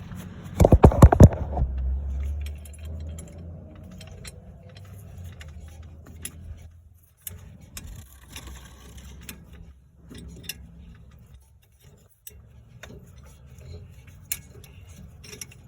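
Light metallic clicks and clinks as a C-clamp is turned to press a brake caliper piston back into its bore, after a short burst of loud knocks about a second in.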